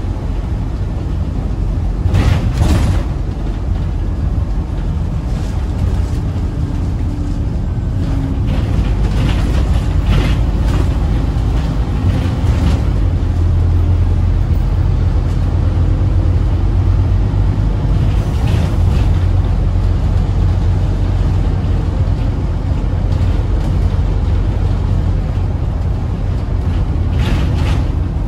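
Scania N230UD double-decker bus on the move, heard from the upper deck: a steady low engine and road drone, with a few brief rushes of noise along the way.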